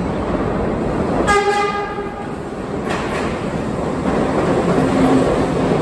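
New York City subway train rumbling into an underground station, growing louder as it approaches. It sounds one short horn blast about a second in.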